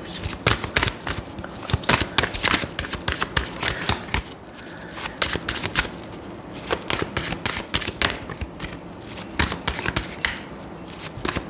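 Tarot cards being shuffled and handled: dense runs of quick card clicks and slaps, easing off for a couple of seconds about four seconds in.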